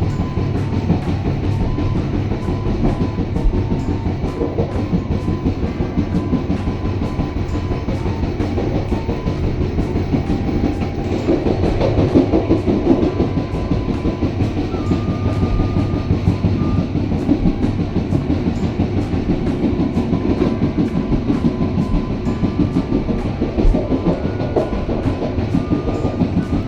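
Passenger train running along the rails, heard from on board: a steady rumble with regular wheel clicks about twice a second.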